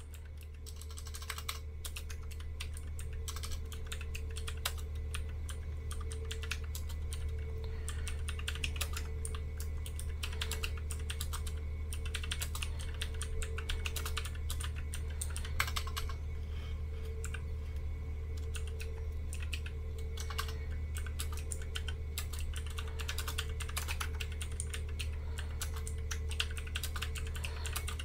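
Fast, continuous typing on a Magic-Refiner mechanical keyboard with clicky blue switches: a dense, unbroken stream of key clicks over a steady low hum.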